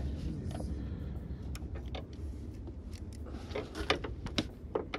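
Scattered light clicks and taps of hands handling the cooling-system fittings and plastic parts in a car's engine bay, over a steady low rumble.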